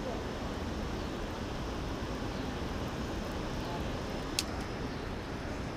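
Steady rushing noise of water pouring through a dam spillway, with one sharp click about four and a half seconds in.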